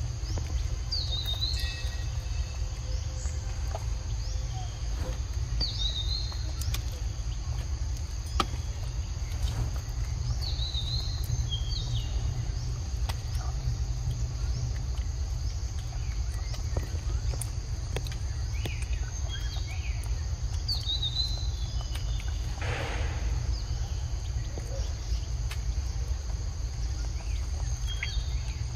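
Outdoor forest ambience: a steady high insect drone and a bird repeating a short call about every five seconds, over a constant low rumble. There is a brief rustle about two-thirds of the way through.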